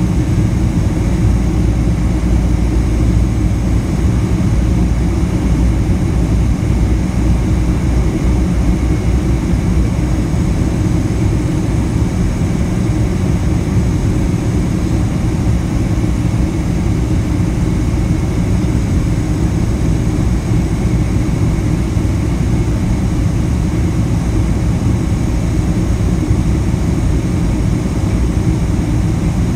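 Boeing 767-300 cabin noise heard from a seat over the wing during the climb after takeoff. The jet engines at climb power and the rush of airflow make a steady, deep rumble with a hiss above it.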